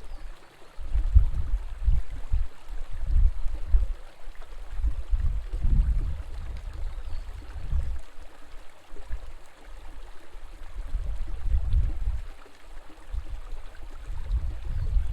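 River water flowing steadily, with irregular low rumbles that swell and fade every second or two.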